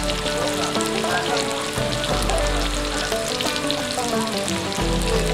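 Meat patties sizzling and crackling in oil on a round grill pan over a portable gas stove, with background music playing.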